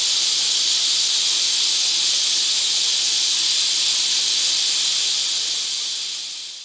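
Adjustable siphon-fed air atomizing spray nozzle hissing steadily as compressed air breaks liquid into a fine mist. The hiss fades out near the end.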